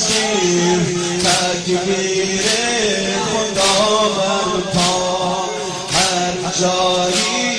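A male voice chants a slow Muharram lament (noha) on a bending melodic line. A sharp, slap-like beat keeps time about every 1.2 seconds.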